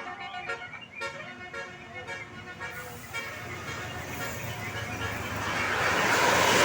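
Tour bus 'telolet' musical air horn playing a quick run of short notes. It gives way to a rising rush of vehicle noise that grows loud near the end.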